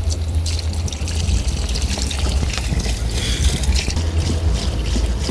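Water splashing and trickling over a steady low rumble.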